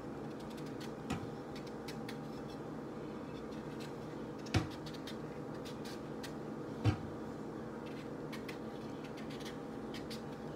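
Kitchen knife work on a breadfruit: faint scratchy ticks of the blade, with a light knock about a second in and two sharper knocks about 4.5 and 7 seconds in, over a steady low hum.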